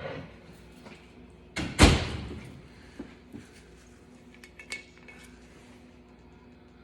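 A glass whiskey bottle is set down hard on a table with one loud knock about two seconds in. A few light clicks and clinks of the bottle and glassware being handled follow.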